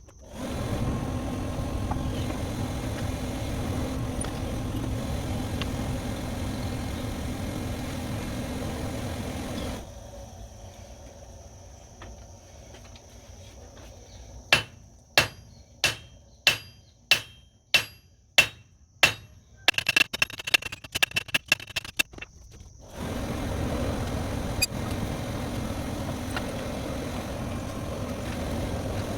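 Hammer blows on metal, each strike ringing, about two a second, followed by a quick flurry of lighter taps, while metal for fireplace tools is worked. Before and after the hammering, a steady machine-like hum runs and then stops.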